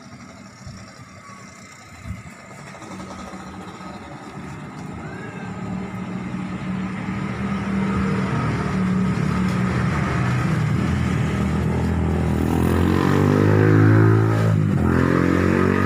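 Motor vehicle engine running close by. It grows louder over several seconds, and its pitch rises and falls near the end as it passes.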